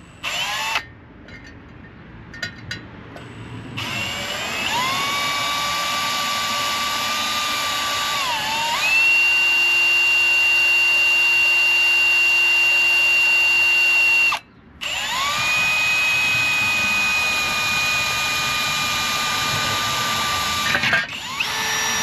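Power drill with a small black-oxide bit boring a center-punched pilot hole in metal. After a short blip it spins up to a steady high whine that dips and then steps up in pitch around the middle. It stops for a moment, runs again, and ends with a short burst near the end.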